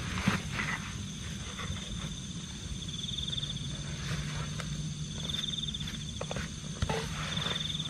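Night-forest insects: a short pulsing trill repeats about every two seconds over a steady high-pitched insect drone. Scattered rustles and crunches like steps through leaf litter come through, the loudest just after the start and about seven seconds in.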